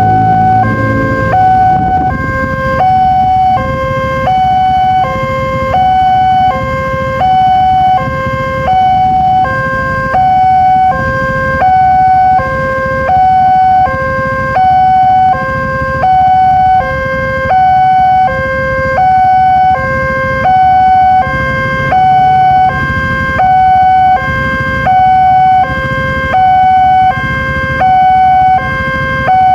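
Railway level-crossing warning siren sounding a tinny two-tone wail, switching steadily between a higher and a lower tone, each held for about two-thirds of a second, over a low rumble. The siren warns that a train is approaching and the crossing barriers are down.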